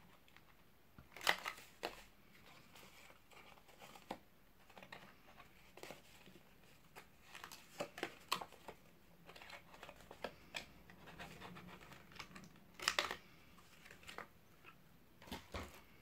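Corner-rounder paper punch snapping through paper, once about a second in and again near the end, with soft rustling and small clicks of the paper being turned and fitted into the punch between them.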